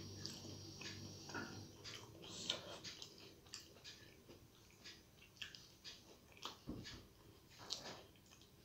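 A person chewing a mouthful of rice and curry with her mouth closed while her fingers mix rice on a steel plate: soft, irregular wet smacks and clicks.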